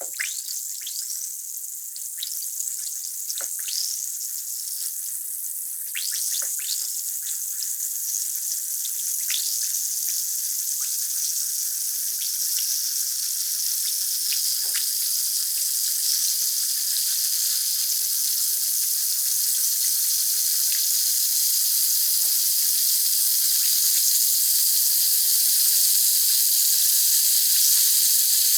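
Calcium tablet fizzing as it dissolves in a glass of water: a high hiss of bubbles that grows gradually louder, with many small bubble pops and chirps in the first half that thin out later.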